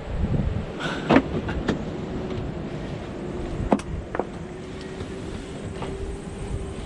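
A handful of sharp knocks and bumps as a person climbs down into a sailboat's fibreglass cockpit locker, over a low rumble. The loudest knocks come about a second in and again near four seconds.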